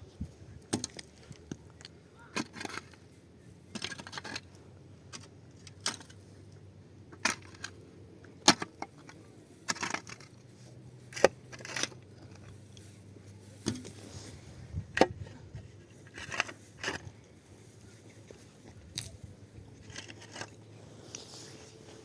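Irregular sharp clicks and knocks of hard objects being handled, with some scraping, over a faint steady low hum.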